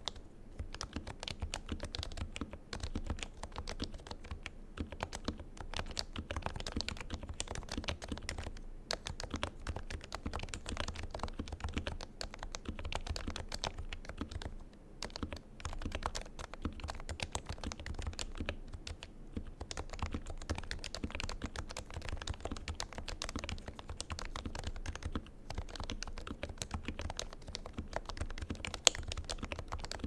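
Continuous fast typing on an HHKB Professional 2 with lubed Topre switches and stabilizers: a dense run of keystrokes with a few brief pauses, and one sharper, louder keystroke near the end.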